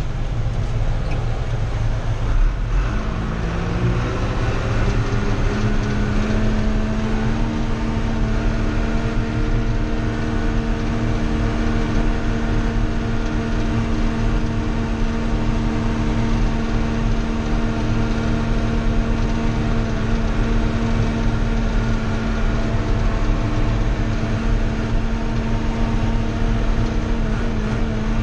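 Old John Deere tractor's engine running under way, heard from inside its cab. The engine pitch climbs a few seconds in, then holds a steady note over a constant low rumble.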